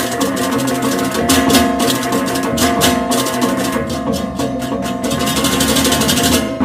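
Balinese gamelan-style percussion music: steady ringing metal tones under fast, dense strikes, with repeated stretches of bright cymbal-like clashing.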